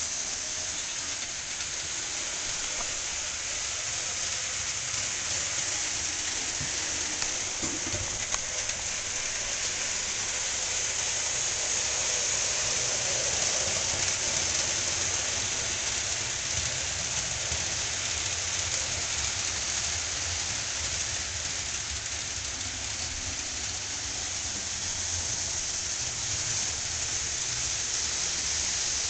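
Steady hiss with a low, uneven rumble underneath, and no clear events apart from a faint click about eight seconds in.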